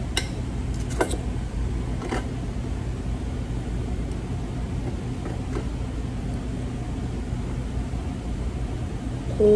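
Steady low hum of a restaurant's background noise, such as air conditioning. A few light clicks in the first two seconds come from a knife and fork on a plate as a burger is cut.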